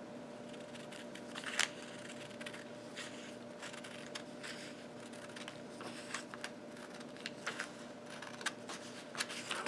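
Scissors cutting through folded ruled notebook paper: faint, irregular snips and paper crackle, the sharpest snip about a second and a half in.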